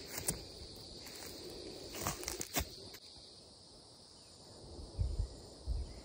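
Footsteps crunching through dry grass, a few short steps about two seconds in, over a steady high insect drone; a couple of low thumps near the end.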